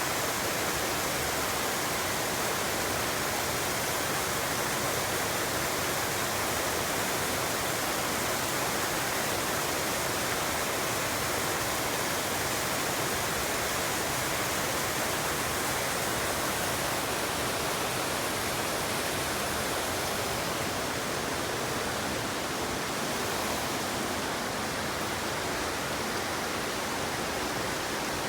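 A small waterfall pouring steadily into its plunge pool: an even, unbroken rush of falling water.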